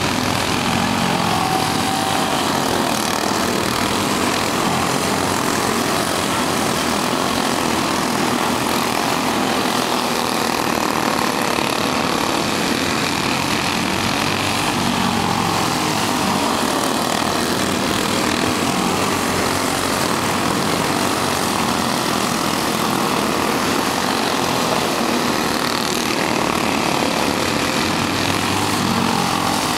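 A pack of clone-engine racing karts lapping a dirt oval. Their small single-cylinder four-stroke engines make a steady buzz, and the pitch rises and falls as karts pass and work through the turns.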